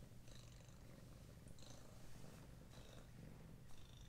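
Domestic cat purring faintly while being stroked, a low steady rumble.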